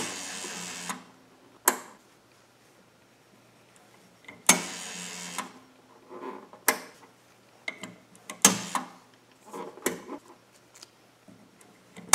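Rotary telephone dial on a homemade adding machine being wound and let go, spring-returning with a whirring, clicking run of about a second, twice (at the start and about four and a half seconds in) and again at the very end. Between the dial returns come sharp single clicks from the rotary place-selector knob being turned, with a small cluster of clicks after about eight seconds.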